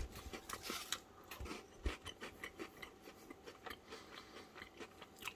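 Faint, irregular small crackles and clicks, several a second, from a crisp Kit Kat wafer being chewed and its foil wrapper being handled, with a few soft knocks in the first two seconds.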